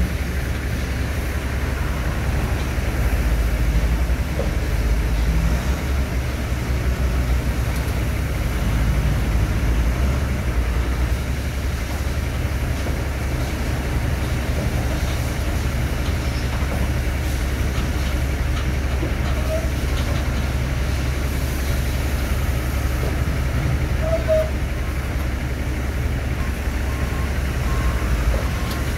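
John Deere 624G wheel loader's diesel engine running steadily as the loader climbs onto a lowboy trailer deck: a continuous low rumble.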